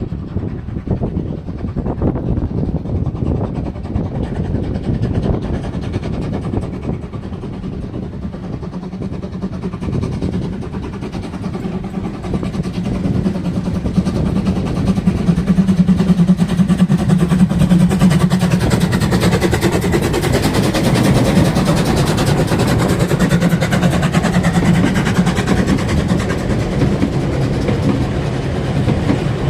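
Narrow-gauge class 99 steam train running, a steady rumble of locomotive and wheels that grows louder about halfway through.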